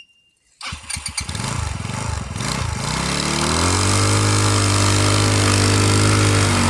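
Sharmax SN-280 snowmobile engine starting about a second in, running unevenly at first, then revving up and holding steady high revs as the stuck sled works its way out of deep snow.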